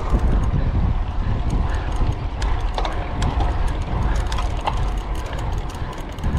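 Bicycle ridden at speed: a steady rumble of wind and road noise with a scatter of sharp clicks and rattles from the bike.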